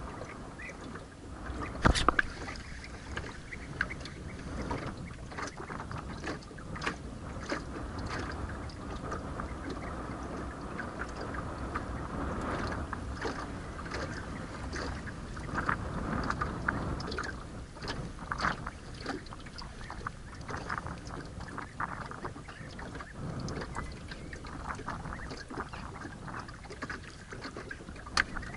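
Water lapping against a small fishing boat's hull, with scattered small clicks and knocks, and one sharp knock about two seconds in.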